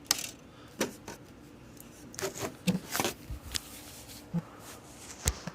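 Scattered short clicks and soft knocks of handling noise in a quiet small room, a dozen or so spread irregularly, some with a brief low thud.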